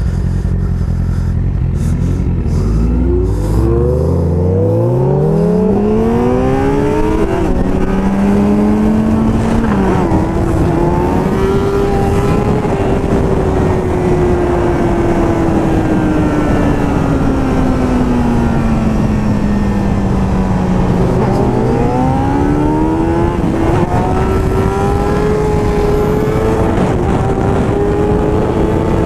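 Motorcycle engine accelerating hard, its pitch climbing in steps as it shifts up through the gears. It then holds a high note that sinks slowly, and climbs again after about twenty seconds. Wind rushes over the helmet microphone throughout.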